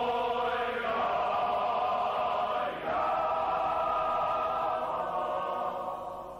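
Male voice choir singing held chords. The harmony shifts about a second in and again near three seconds, and the sound fades near the end.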